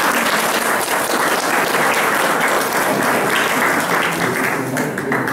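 Audience applauding, a dense steady clapping that begins to die away at the very end.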